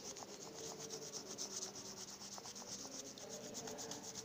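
Coloured pencil rubbed rapidly back and forth over a notebook page laid on a leaf, a faint, rhythmic scratching as a leaf rubbing is shaded in.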